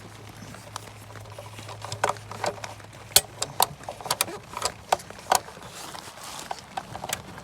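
Hand tools working on metal fasteners: irregular sharp clicks and clinks, a dozen or so, with a faint low hum underneath.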